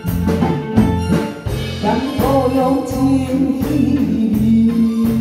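Small live band of drum kit, electric guitars and keyboard playing a steady-beat ballad; a woman starts singing into a microphone about two seconds in and holds a long note near the end.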